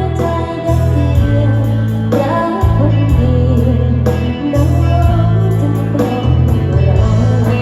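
A song played loud through a wedding PA system during a sound check, with heavy bass notes changing about once a second under singing and instruments.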